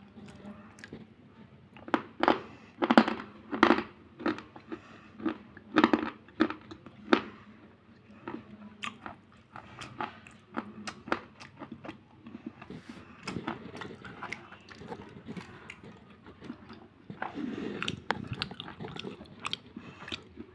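A person biting off and chewing pieces of a chalky slate pencil bar: a run of loud, crisp crunches about two to seven seconds in, then quieter, quicker chewing crunches.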